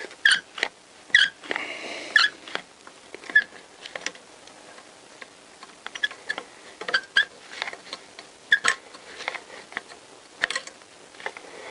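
Homemade valve spring compressor being levered down onto a valve spring on a Honda CBR1000F cylinder head: irregular light metal clicks and taps, a few with a short ring, as the tool shifts and seats on the spring retainer.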